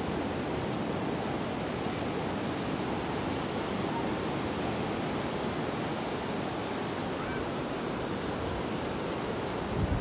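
Ocean surf breaking and washing up a sandy beach, a steady, even rush.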